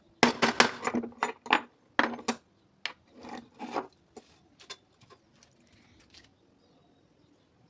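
Locking pliers being handled and worked on: a quick run of sharp metal clicks and knocks, then a few softer scraping rubs and scattered ticks that die away about six seconds in.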